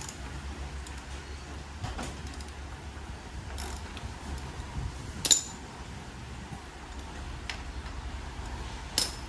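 Socket ratchet clicking in short spells as bolts are cracked loose on a motorcycle's front end, with a few sharp metal knocks, the loudest about five seconds in.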